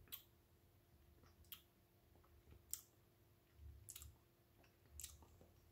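Faint mouth clicks and lip smacks, about five spaced a second or so apart, as a sip of beer is tasted; otherwise near silence.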